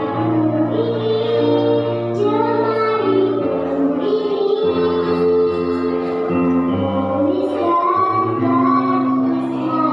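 A young girl singing a solo into a microphone over instrumental accompaniment, holding long notes that rise and fall between phrases.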